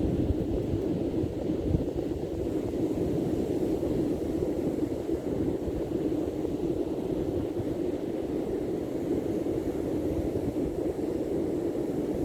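Steady seaside wind and surf noise, with wind rumbling on the microphone.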